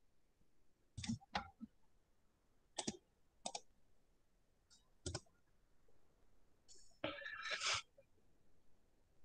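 Computer mouse clicking: a handful of separate sharp clicks, a quick pair about a second in, more near three and five seconds, then a longer, louder noisy sound about seven seconds in.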